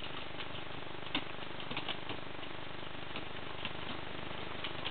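Faint, scattered clicks of an Italian greyhound's claws tapping on a hard floor as it balances and shifts on its hind legs, over a steady hiss.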